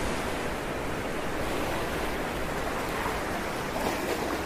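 Steady rushing of water like sea surf, an even noise with no distinct events.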